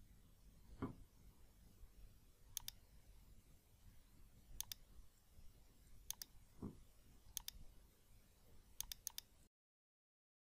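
Computer mouse button clicking: a quick pair of clicks every second or two, with three close together near the end. Two dull low thumps, about a second in and again near seven seconds, the first being the loudest sound. The sound cuts off suddenly just before the end.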